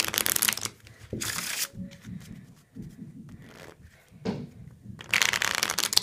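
Deck of playing cards being riffle shuffled on a felt mat. There is a brisk riffle of flicking cards at the start, another about a second in, and a third about five seconds in, with softer rustling as the halves are pushed together and squared between them.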